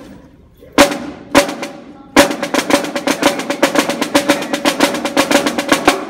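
Marching snare drum played solo: two sharp single strokes about half a second apart, then from about two seconds in a fast, even run of strokes, roughly eight a second, that stops near the end.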